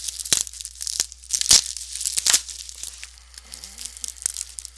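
Plastic wrapping being torn open and crinkled by hand, a run of irregular crackles with a few sharp rips, the loudest about a second and a half in.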